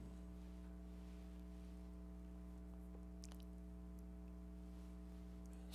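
Near silence: a steady low hum of room tone, with a couple of faint clicks about three seconds in.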